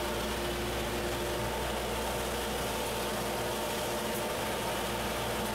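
Table saw motor running steadily with a constant hum and whine and no cut being made.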